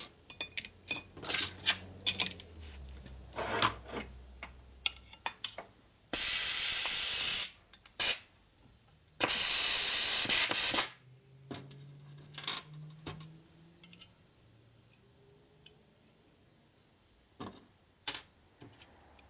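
Two long blasts of hissing pressurized spray, each about a second and a half, a couple of seconds apart. Around them come sharp metal clicks and clinks as a valve spring compressor is worked on a Harley-Davidson Evolution cylinder head while valve springs and collars are fitted.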